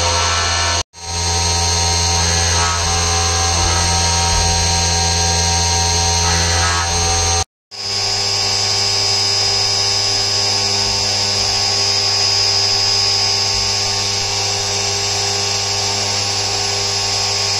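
CNC mill spindle running with a small end mill cutting a pocket in a billet aluminium engine case, a loud steady whine with several fixed tones. It breaks off abruptly twice, about a second in and about seven and a half seconds in, and the pitch of the whine shifts after the second break.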